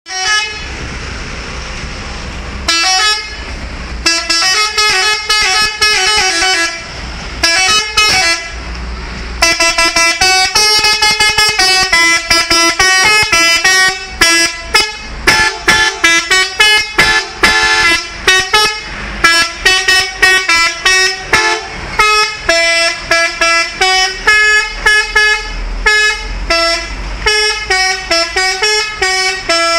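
Telolet multi-trumpet air horns playing melodic sequences. After about three seconds of low rumble and hiss, long held chords give way from about ten seconds to quick runs of short notes stepping between pitches. The last ten seconds are short staccato honks several times a second.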